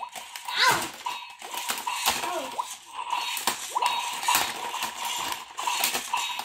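Silverlit Robo Kombat toy fighting robots punching each other: a rapid, irregular run of plastic clacks and knocks as their swinging arms strike, over a faint steady whine from their motors.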